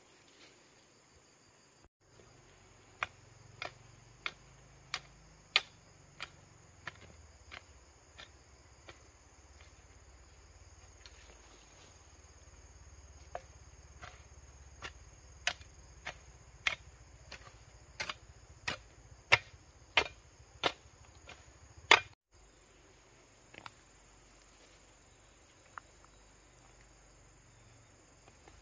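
Hoe blade chopping into dry, stony soil in a steady rhythm of a little under two strokes a second, the strikes growing louder toward the end, over a steady high drone of insects.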